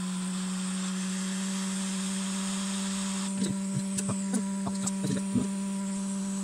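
Steady electrical hum with a hiss from the soldering bench. From about halfway through come light, irregular taps and clicks of tweezers and a soldering iron working on a graphics card circuit board.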